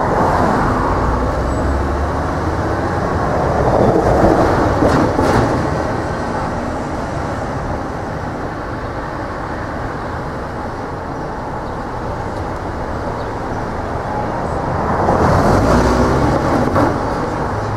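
Elevated subway train running along the steel viaduct overhead, a steady loud noise throughout. Cars pass close by on the street below, loudest about four seconds in and again near the end.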